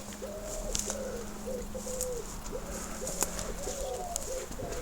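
A pigeon cooing: a run of soft, rounded coos at about two a second, with a few faint sharp clicks among them.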